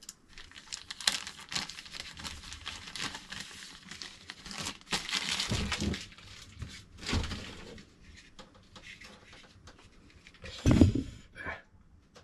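Packaging being unwrapped by hand: irregular crinkling and tearing of wrapping material in bursts, with one louder thump a little before the end.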